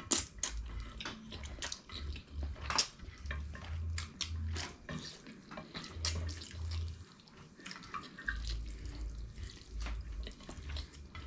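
Two people slurping and chewing spaghetti eaten with chopsticks: a string of short wet slurps, smacks and clicks, with a low hum coming and going underneath.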